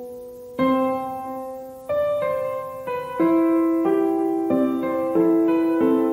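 Background piano music: gentle notes and chords struck one after another, each left to ring and fade.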